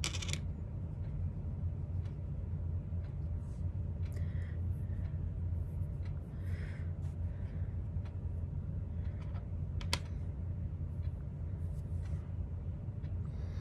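A steady low hum, with faint scattered soft rubbing and tapping sounds of fingers working pressed eyeshadow onto bare skin. One sharp click comes about ten seconds in.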